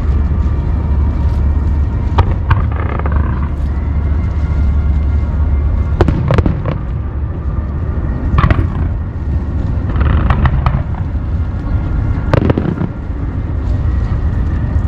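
Aerial firework shells bursting: four sharp booms a few seconds apart, with bursts of crackling between them, over a continuous low rumble.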